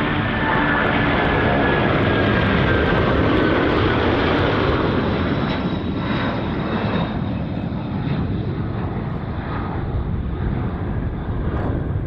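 Boeing 747-400F freighter's four jet engines at takeoff power as it passes: a loud, dense rumble with a high whine sliding down in pitch over the first few seconds, then easing off in the second half.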